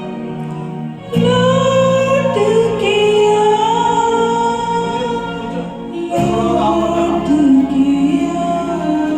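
Karaoke backing music for a Hindi film song: a sustained, gliding melody line over held chords, with the chords changing about a second in and again about six seconds in.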